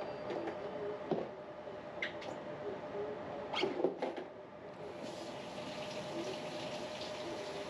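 Wall-mounted split air conditioner's indoor unit with a faint steady hum and a few light clicks and pops in the first four seconds, then an airflow hiss coming up about five seconds in.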